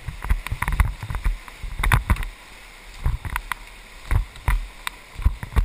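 Whitewater rushing around an inflatable raft as it runs a rapid, with many irregular splashes and low thumps of water and paddles hitting the boat.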